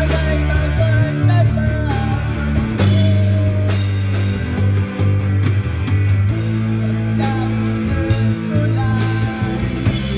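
Live rock band playing: electric guitars through amplifiers and a drum kit keeping a steady beat with regular cymbal hits, under a singer's voice through a microphone.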